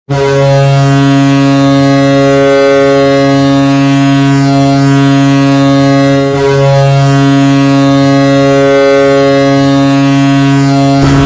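Hockey arena goal horn of the Toronto Maple Leafs type, a deep ship-style air horn, sounding loud and steady in two long blasts with a brief break about six seconds in. A goal song starts over its end.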